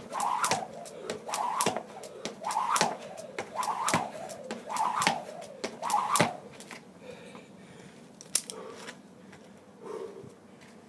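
Jump rope double-unders: the rope and landing feet slap the floor in a steady rhythm, about one jump every 0.6 seconds, stopping about six seconds in.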